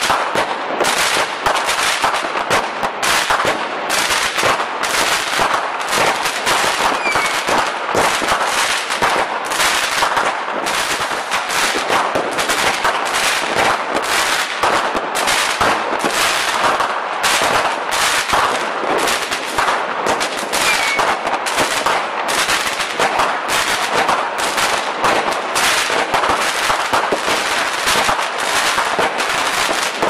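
Fireworks going off in a dense, rapid string of sharp cracks and pops, with no pause.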